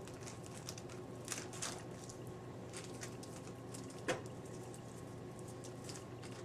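Faint wet patting and squishing of hands smoothing wet plaster of Paris bandage over a foot cast, with one sharp tap about four seconds in, over a low steady hum.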